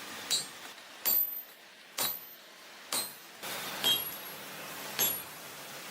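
Hammer blows on hot steel over an anvil, about one a second, six strikes, each leaving a short metallic ring.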